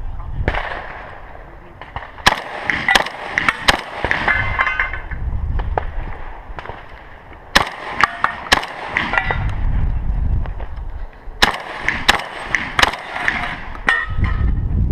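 Gunshots fired in three quick strings with short pauses between, from a rifle or shotgun during a timed stage, with rumbling movement noise on the camera mic between strings.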